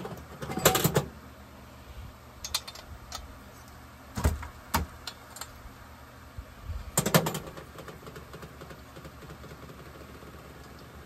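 Metal tools and small parts clinking and knocking as they are handled on a workbench, in scattered clusters, the loudest about a second in and around seven seconds, over a steady low hum.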